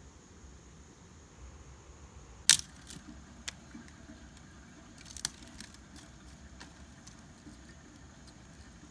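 Dry sticks and twigs clicking and snapping as they are handled and laid on a wood fire being lit. A sharp snap comes about two and a half seconds in and another about five seconds in, with fainter ticks between.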